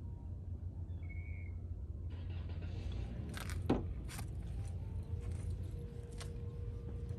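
A handful of light clicks and rattles, the loudest just before the middle, over a light hiss and a steady low hum.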